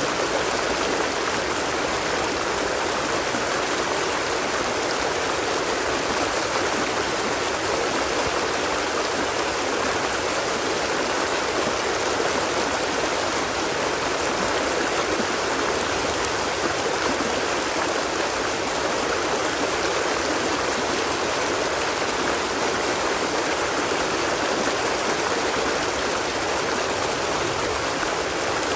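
A stream of water flowing steadily, giving an even, unbroken sound with no single splashes.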